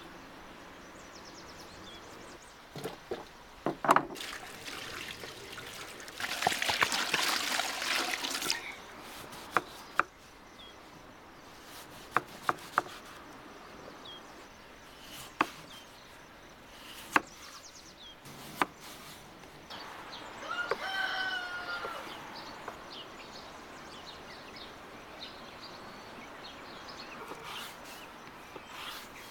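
Water running for about two seconds over peeled potatoes in a metal pan, among scattered sharp knocks and clicks of the potatoes and knife being handled. Near the end, a knife cuts through raw potato onto a wooden board in a few light taps. About two-thirds of the way through there is a short pitched sound that rises and falls.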